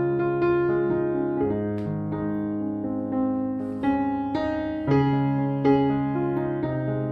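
Background piano music: a slow solo piece with single notes and chords struck about once a second, each ringing on.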